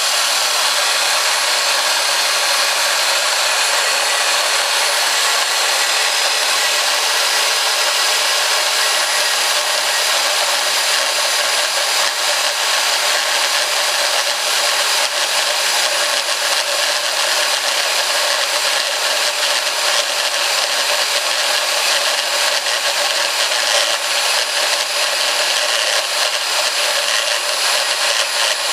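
ROKS RB-100 metal-cutting band saw running and cutting through a round pipe of 115 mm outer diameter: a steady, even hiss with several high steady tones in it, without a break.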